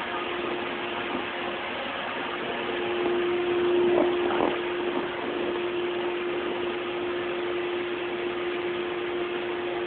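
Electric blower of an inflatable bounce house running steadily, a constant hum over a rush of air. A brief louder sound comes about four seconds in.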